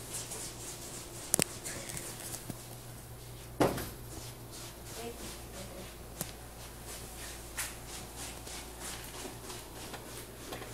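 Handheld camera handling and rustling with a few soft knocks, the loudest about three and a half seconds in, over a steady low hum.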